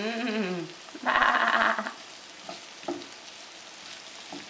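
Two sheep-like bleats sound over a skillet of vegetables sizzling. The first "baa" falls in pitch. The second, about a second in, is louder, held level and quavering. A few faint clicks of stirring follow.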